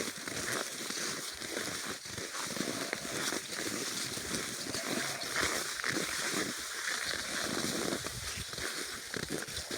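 Snow squeaking and crunching under skis and ski poles as a skier moves along a groomed ski track, in irregular crunchy bursts.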